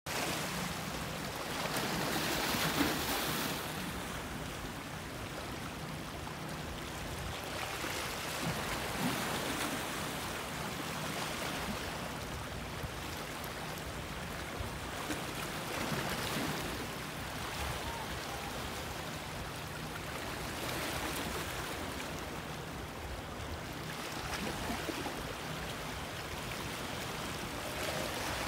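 Small sea waves lapping and splashing against shoreline rocks, a steady wash that swells every several seconds.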